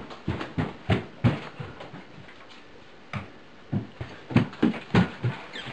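A series of about a dozen irregular dull thumps and knocks, bunched in two flurries with a short lull in between.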